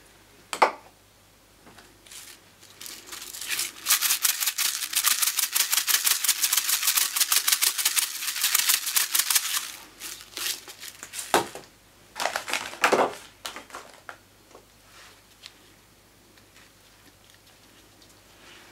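Colourful sugar sprinkles falling onto rolled ice cream in a ceramic cup and onto the steel cold plate, many tiny grains ticking in a dense patter for about six seconds. A few single sharper clicks come before and after.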